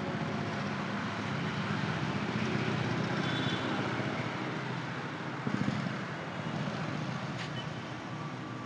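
Road traffic: a car passing with steady engine and tyre noise, and a brief thump about five and a half seconds in.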